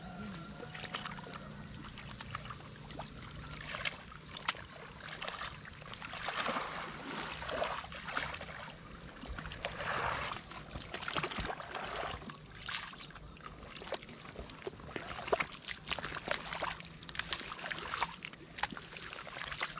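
Wet paddy mud and shallow water sloshing and splashing as a pole is pushed through a flooded rice field to level it and boots wade through the mud. There are irregular splashes and small clicks, with louder sloshing rushes now and then. A steady thin high tone runs underneath.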